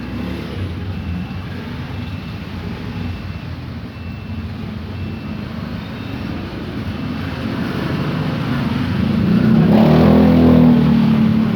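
A motor vehicle engine running, growing louder and peaking near the end, with a faint high beep repeating about once a second.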